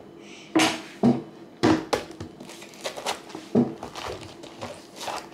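A whole head of cabbage handled and set down on a wooden cutting board: about five sharp knocks with crisp crinkling of its leaves between them.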